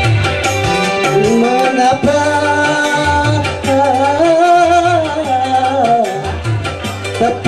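Electronic keyboard playing an instrumental passage of a song: a lead melody that bends and glides in pitch over a repeating bass line and drum beat.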